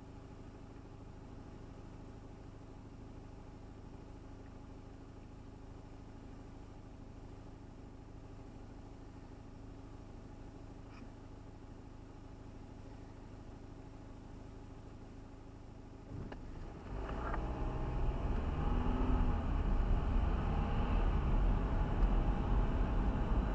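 Car at a standstill with a faint, steady low engine hum, then moving off about 16 seconds in, the engine and road rumble suddenly growing much louder and staying up.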